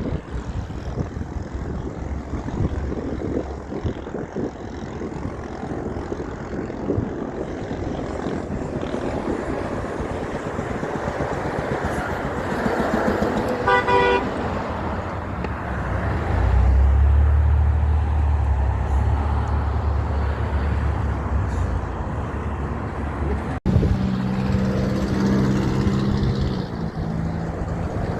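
Heavy trucks driving past with loud engine and road noise, and a truck horn sounding in brief blasts.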